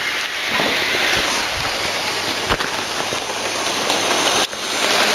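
Model freight train running along the track close to the microphone: a steady rushing rattle of small wheels and motor, with a few faint clicks.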